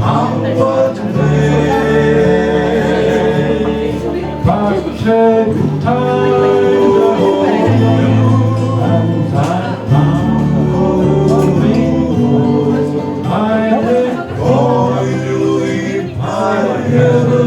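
A folk song sung with instrumental backing: the voice holds long notes over a steady bass line that changes every few seconds.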